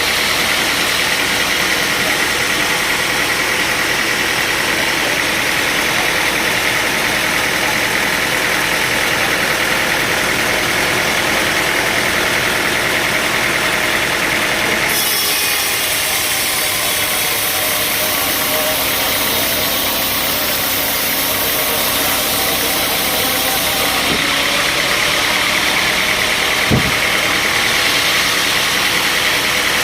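Sawmill machinery running steadily. About halfway through the sound shifts abruptly to a hissier mix for several seconds, then shifts back, and a brief sharp sound comes near the end.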